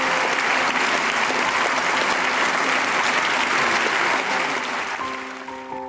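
Audience applauding steadily, fading out near the end as piano music comes in.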